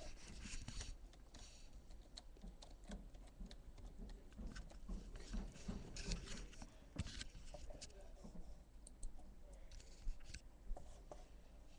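Scattered faint clicks and taps of a computer keyboard and mouse over a low steady hum.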